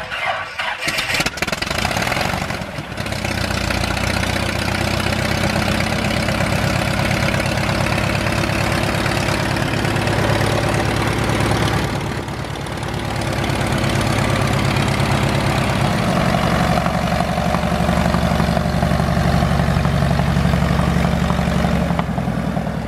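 The 150 hp four-cylinder Lycoming engine of a 1969 American Champion 7GCAA Citabria starts and catches unevenly over the first few seconds. It then settles into a steady idle and runs louder from about two-thirds of the way through as the plane begins to taxi.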